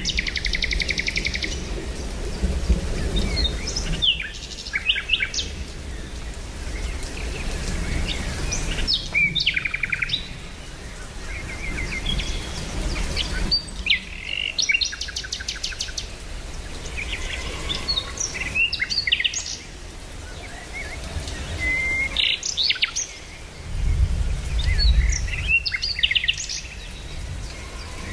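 Songbirds chirping and calling, with short chirps and rapid trills, over steady background noise. A low rumble comes and goes, strongest near the end.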